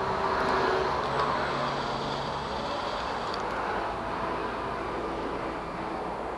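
Cordless Makita driver with a 5 mm hex bit running against the scooter's handlebar bar-end weight bolt for about three seconds, then stopping with a small click, over a steady background hiss.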